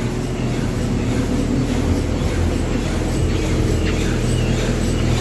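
Touchless automatic car wash running: a steady machine hum from its pumps under the hiss of water spraying over the car in the final rinse.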